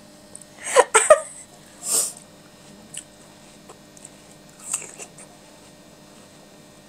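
Short wordless whimper-like vocal sounds from a person about a second in, then breathy puffs near two and five seconds, with a few faint clicks of a fork in between.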